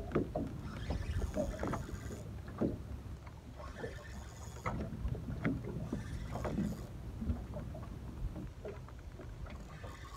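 Water slapping against the hull of a small boat, over a steady low rumble, with scattered light taps and knocks at irregular intervals.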